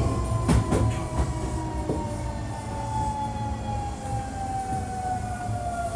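Hankyu 1300 series electric train's traction motor and inverter whine, a steady siren-like tone sliding slowly down in pitch as the train slows under braking, over the rumble of the running gear. A few sharp rail-joint clicks come in the first second.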